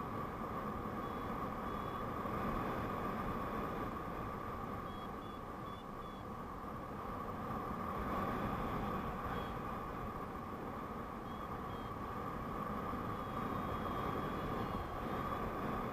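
Steady wind rushing over the camera's microphone as a paraglider glides through the air. Faint short high beeps sound now and then, a few at a time.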